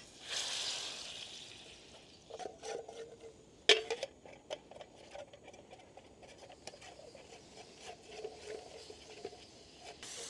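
Plastic spatula scraping and tapping in a metal camping pot, mashing a fish stock cube into oil and lemon juice, with one sharp knock about four seconds in. A short sizzle at the start as the pot goes onto the gas stove.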